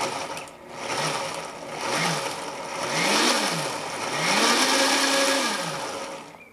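Countertop blender pulsed four times, chopping a thick herb marinade. The motor spins up and winds down with each pulse: two short ones, a longer one about three seconds in, and the longest near the end. It is pulsed on and off, not run full, so the marinade keeps some texture.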